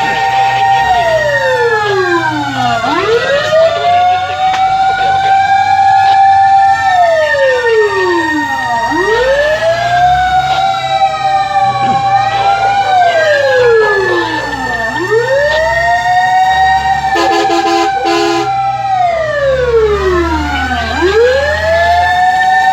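Fire truck sirens wailing. The loudest holds a high tone for a few seconds, sweeps down and climbs back up about every six seconds, while other sirens overlap with their own rising and falling tones. A brief lower steady tone cuts in about 17 seconds in.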